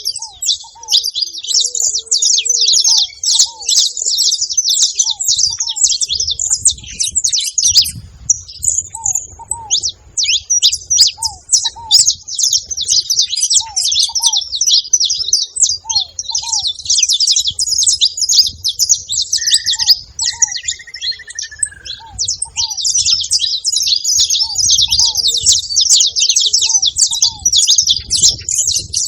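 Saffron finch (canário-da-terra) singing: a rapid, nearly unbroken stream of high chirps and trills, pausing briefly about ten seconds in and again a little after twenty seconds.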